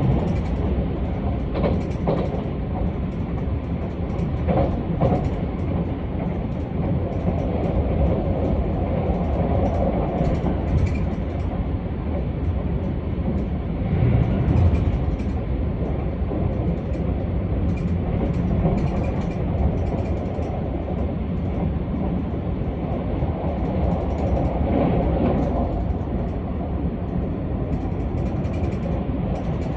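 Keisei AE-series electric train running along the line, heard from inside a passenger car: a steady rumble of wheels on rail, with a few short clicks and some swells in loudness.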